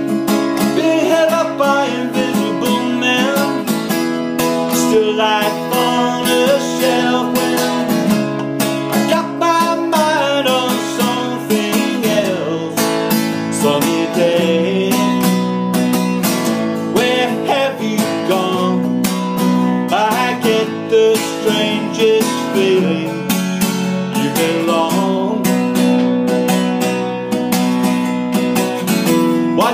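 Acoustic guitar playing an instrumental passage, strummed chords ringing under a moving melody line.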